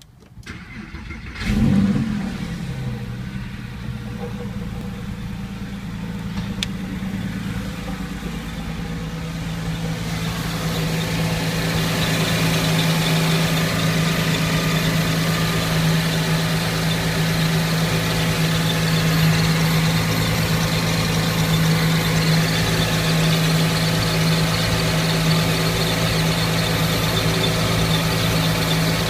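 Porsche 911 (997.1) flat-six engine starting about a second and a half in, flaring briefly in pitch, then running steadily. The sound grows louder and fuller about ten seconds in.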